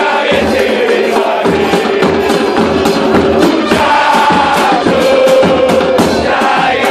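A football supporters' crowd chanting a song in unison, backed by trumpets and steadily beaten bass drums (bombos).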